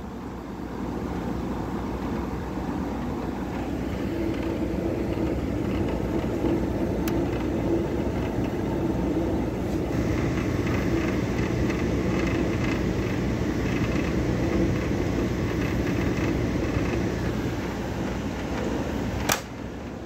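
Vintage wood-grain window air conditioner running on cool, slow to blow cold: a steady hum and rush of fan air, with a tone that grows stronger a few seconds in and a higher tone joining about halfway. A sharp click near the end, after which the sound drops a little.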